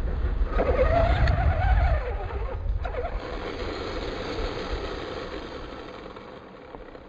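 Brushless RC car's electric motor whining, rising and falling in pitch for the first couple of seconds over a low rumble, then holding a steadier whine that grows fainter as the car moves away.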